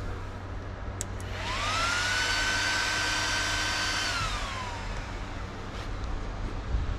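GPU mining rig powering on: a click, then its fans spin up with a rising whine, run at full speed for about two seconds, and wind down as the rig settles after start-up.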